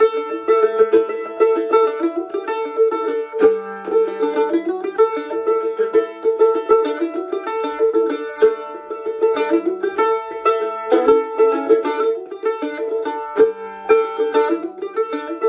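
A solo plucked string instrument playing a flowing instrumental tune: quick picked notes over one repeated note that keeps sounding.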